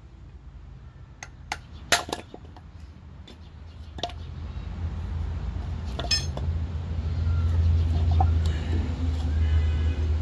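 A few sharp metallic clinks and taps from the tiller's mule-drive parts being handled, one a short rattle about six seconds in. From about halfway a low rumble builds and becomes the loudest sound.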